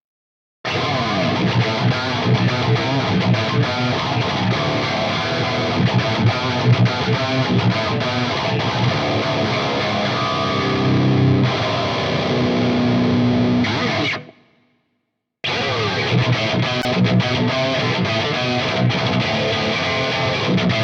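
Seven-string Ibanez GRG7221QA electric guitar played through distortion. The playing stops abruptly about two-thirds of the way through, leaves a second of silence, then starts again.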